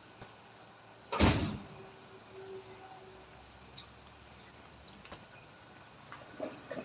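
A single loud knock about a second in, followed by a few light clicks and taps.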